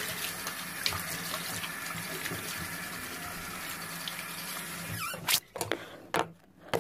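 Bathroom faucet running into a sink while hands rinse under the stream. The water stops abruptly about five seconds in, followed by a few sharp knocks.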